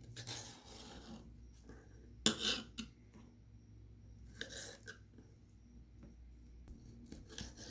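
Knife cutting raw snapper fillet into cubes on a ceramic tile: a few short scrapes of the blade on the tile, the loudest a sharp tap about two seconds in.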